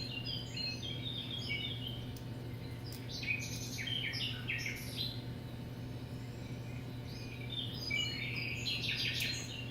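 Small birds chirping and twittering in quick clusters of short calls, busiest near the start, in the middle and near the end, over a steady low hum.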